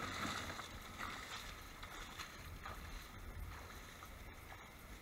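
Wind buffeting the microphone over rustling long grass, with a burst of rustling at the start and a few soft swishes as a person walks away through the grass.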